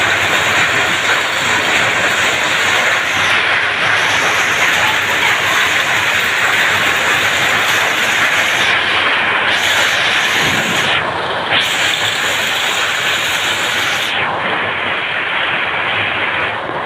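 Heavy hailstorm: a loud, steady, dense clatter of hailstones pelting down on the ground and foliage.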